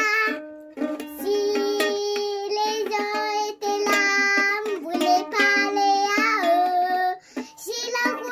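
A young girl singing in long held notes, a second or so each with short breaks between, while strumming a ukulele.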